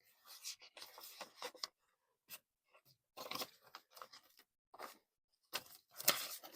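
Paper money and budget envelopes being handled: irregular rustling and crinkling, loudest near the end.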